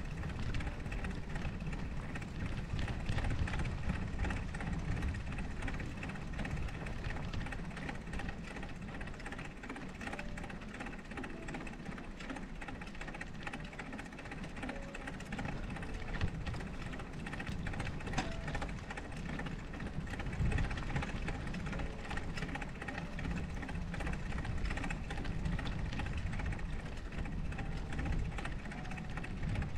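Wind from a snowstorm rushing and buffeting over the microphone while riding through the snow, a steady noise with a heavy low rumble that swells and eases.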